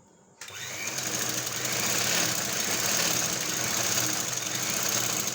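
Sewing machine running as a seam is stitched: it starts suddenly about half a second in, picks up speed over the next second, then runs steadily.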